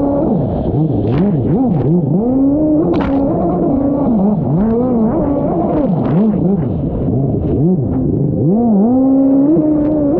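A small engine revving hard, its pitch swinging up and down over and over as the throttle is worked, then held high for a couple of seconds near the end.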